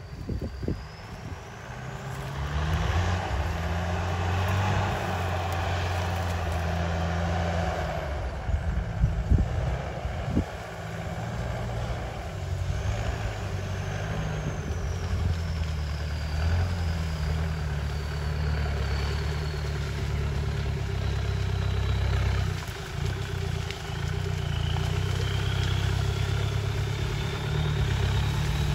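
Off-road 4x4 pickup's engine running under load as it pushes through tall grass, revving up and easing off in steps.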